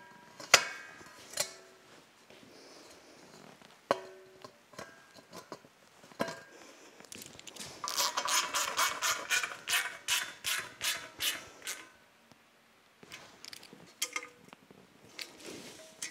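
Metal clanks and knocks as the slotted fan cover of the Doall milling machine's electric motor is fitted over the cooling fan, some knocks ringing briefly. Around the middle comes a fast rattle of clicks, about five a second, lasting a few seconds.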